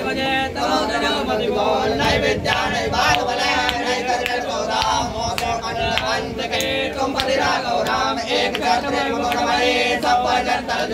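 Several men chanting a Hindu devotional hymn together, steady throughout, with sharp clicks scattered through it.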